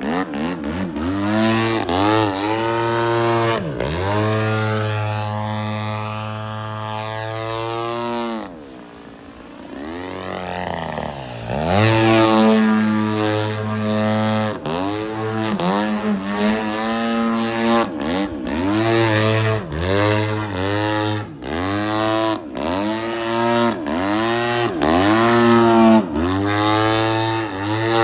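Engine and propeller of an aerobatic radio-controlled airplane in flight, the throttle worked up and down constantly. About eight seconds in it is pulled back to a low, quieter idle for a few seconds, then comes back up in quick repeated surges of rising and falling pitch.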